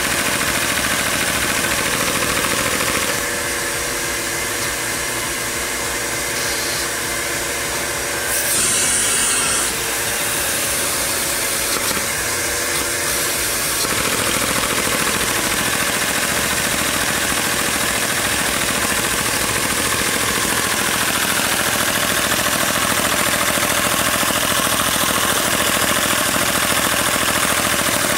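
A LEGO vacuum engine with an overhead cam, running fast on vacuum-cleaner suction. Its plastic parts clatter rapidly and without a break over the steady rush of the suction. The poppet valve has no spring and is held up only by the vacuum.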